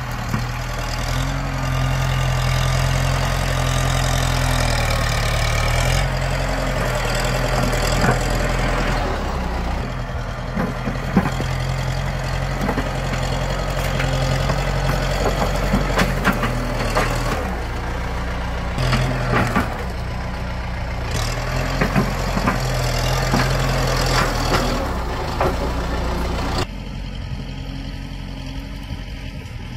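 Orange Kubota tractor's diesel engine running steadily as its front dozer blade pushes an uprooted tree stump through loose soil, with scattered sharp knocks and cracks. Near the end the engine is heard more faintly.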